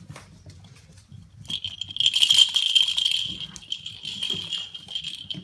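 A puppy's ball toy rattling as puppies chew and tussle with it. The rattling starts about a second and a half in, is loudest a little later and then eases off.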